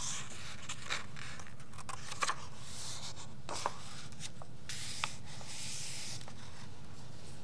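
Pages of a picture book turned by hand: paper rustling and hands sliding over the pages, with a few light clicks and taps.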